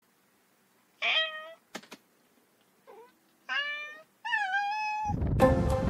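A cat meowing: three clear meows and a faint one, each a short rising-then-falling call, with two short clicks after the first. Music starts near the end.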